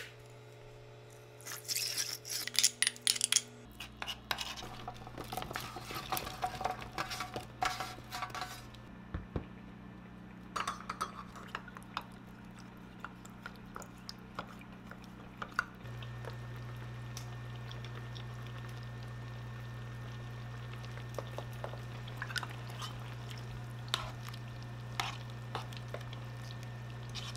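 Cooking-utensil sounds: a wooden spoon clinks and scrapes in a frying pan while sauce ingredients go in, a spoon stirs starch slurry in a small steel cup, then vegetables are stirred in the sauce. A steady low hum comes in a few seconds in and steps up louder about halfway through.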